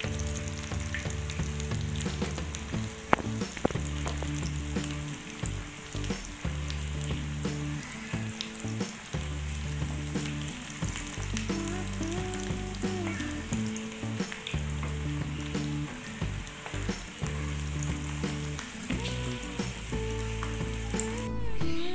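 Tempe mendol patties deep-frying in a pan of hot oil: a steady sizzle with scattered crackles, and a wooden spatula now and then moving them in the pan. Low repeating background music sits underneath.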